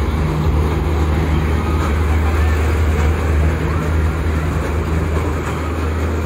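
Steady low rumble of fairground ride machinery, with faint crowd chatter above it.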